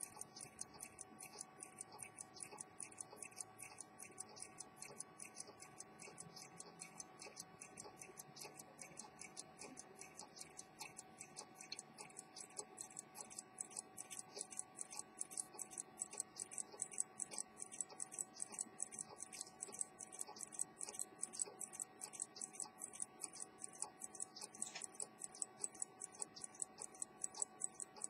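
Antique Swiss ultra-thin pocket watch movement (1840–1865) ticking steadily at about five ticks a second, its escapement beating evenly as the watch runs after repair. A faint steady hum sits underneath.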